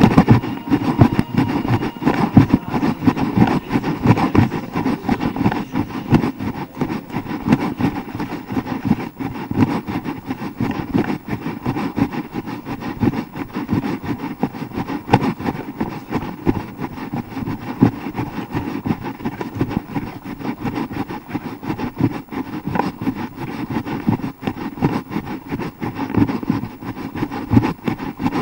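Wind rumble and handling noise on a hand-held action camera's microphone while its carrier runs, with a fast, uneven thumping from footfalls and the camera jolting in the hand.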